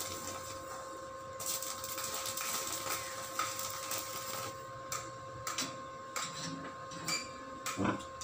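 Electric arc welding on a steel gate: the arc crackles steadily for about four and a half seconds, with a short break about a second in, then stops. A few scattered knocks and clicks follow near the end.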